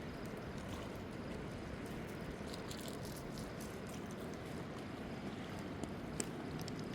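Steady rush of flowing river water, with a few light clicks over it.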